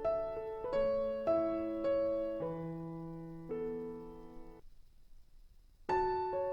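Background piano music: a slow phrase of single notes and chords that fades out about three-quarters of the way through, then starts again after a short pause.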